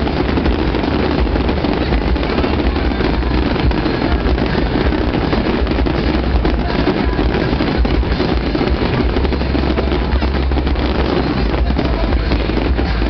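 Fireworks display: aerial shells bursting in rapid succession, a continuous loud rumble of booms and crackle with no gaps.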